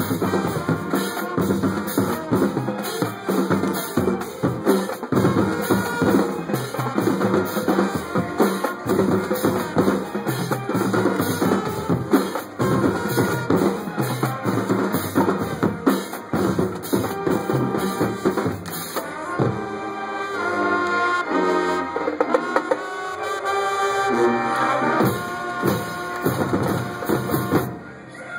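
A marching band plays: bass drums, snares and tenor drums keep up a busy beat under clarinets, trumpets and sousaphones. About two-thirds of the way in, the drums thin out and the held notes of the horns and clarinets carry the tune.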